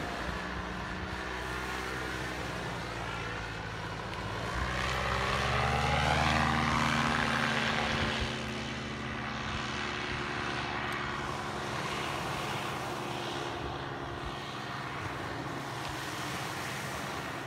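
Paramotor engine and propeller droning as the powered paraglider flies past overhead. It grows louder and shifts in pitch about five to eight seconds in as it passes closest, then settles back to a steady drone as it moves away.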